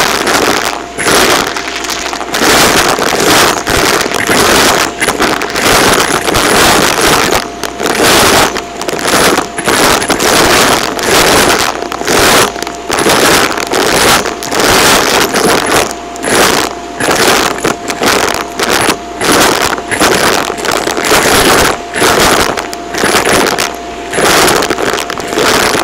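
Bagless upright vacuum cleaner running with a steady motor whine while it sucks up small hard bits and foil confetti that rattle into its clear dust bin. The suction noise surges in even strokes about once a second.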